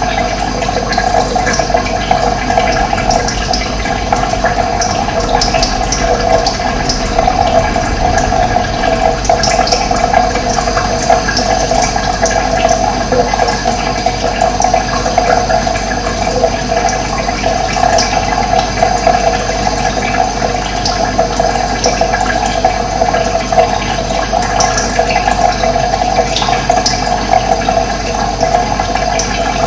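Running water flowing steadily, a continuous rushing with no breaks.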